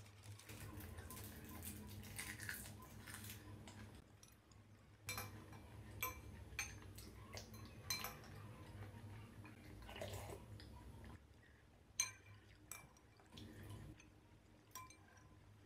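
Metal spoon and metal chopsticks clinking against a glass bowl as they stir through noodle broth: scattered sharp clinks, the loudest about twelve seconds in. Soft rustling fills the first few seconds.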